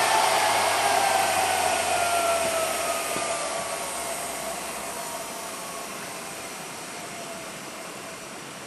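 Electric drill bit sharpener's grinding-wheel motor spinning down after being switched off: a whine that falls steadily in pitch while the whole sound fades away.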